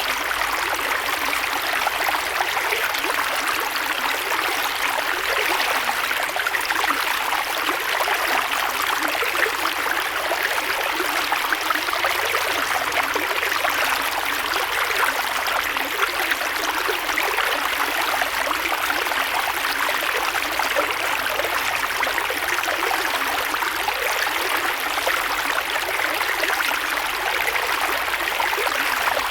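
Creek water flowing and rushing over stones in a steady, unbroken stream, with a fine trickling, babbling texture.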